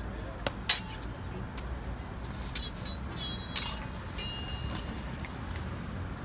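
Metal cooking utensils clinking at a crepe griddle: a handful of sharp taps and clicks of a steel spatula and spoon, a few leaving a short metallic ring, one of them held briefly a little past four seconds in. A low steady street hum runs underneath.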